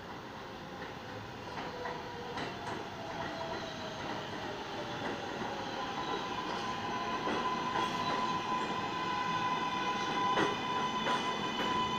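Stainless-steel subway train approaching and running past, growing steadily louder, with a steady motor whine and scattered sharp clicks of wheels over rail joints.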